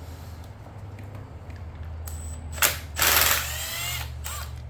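Husqvarna 128LD string trimmer's small two-stroke engine idling with a steady low hum, then a short rev about three seconds in that falls back toward idle; its throttle is sticking.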